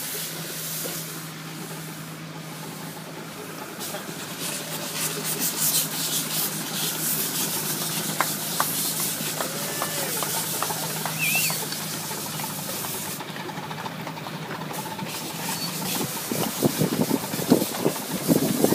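Miniature steam locomotive letting off steam in a continuous hiss that rises and falls, with louder, uneven bursts near the end as the train gets moving.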